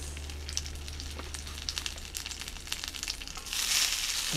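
Hamburger patties sizzling in hot oil in an iron frying pan over a charcoal shichirin, with small crackling pops throughout. About three and a half seconds in the sizzle jumps louder as another patty is set into the pan with tongs.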